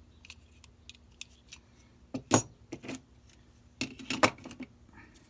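Clicks and knocks of hard objects being handled and set down, in two short clusters: about two seconds in and again about four seconds in.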